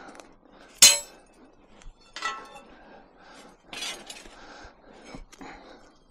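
Pieces of scrap metal clanking and clinking together as they are handled and dropped onto a pile. The loudest, sharpest clank comes about a second in, followed by two more ringing clanks and several smaller knocks.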